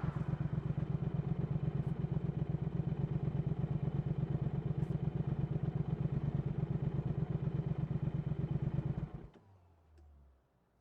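2019 Triumph Speed Twin 1200's parallel-twin engine idling steadily through a Vance & Hines slip-on exhaust, a regular pulsing beat, then switched off about nine seconds in, the sound stopping abruptly.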